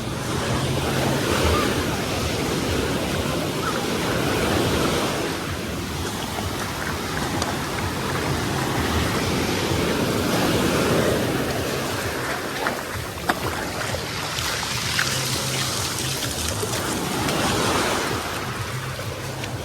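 Sea waves washing onto the beach, the surf swelling and fading in slow surges every few seconds.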